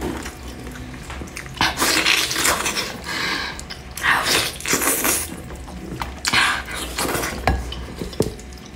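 Wet chewing, lip-smacking and sucking on a braised pork trotter held in the hands, with sticky skin and meat being pulled apart. It comes in irregular wet bursts, with a couple of sharp clicks near the end.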